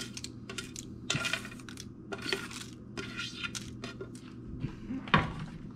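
Kitchen utensils and cookware clinking and knocking: a run of short, irregular clinks over a steady low hum, with one sharper knock about five seconds in.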